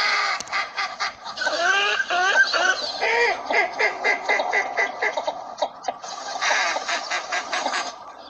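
A flock of northern shoveler ducks calling, many short overlapping calls at once, with a brief lull a little after halfway.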